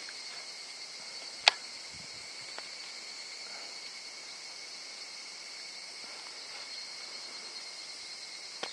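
Steady, high-pitched chorus of insects trilling without a break, with one sharp click about a second and a half in.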